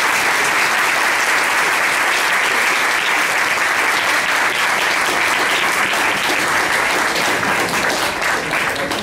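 Audience applauding steadily, thinning slightly near the end.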